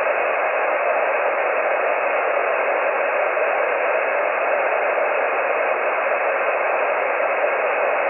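Steady hiss of band noise from a shortwave transceiver's speaker on the 20-metre amateur band in sideband mode, squeezed into the narrow voice passband. No station is heard on the frequency.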